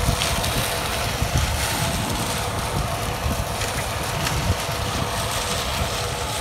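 New Holland CX6090 combine harvester at work in sunflower, its engine and threshing machinery making a steady drone with a faint even hum, heard at a distance while wind buffets the microphone.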